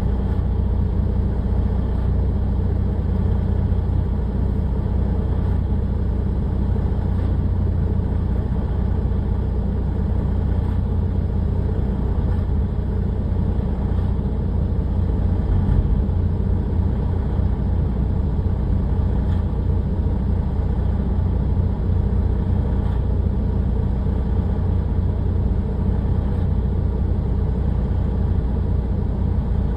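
A crane's engine running steadily with a low rumble that holds at one speed throughout.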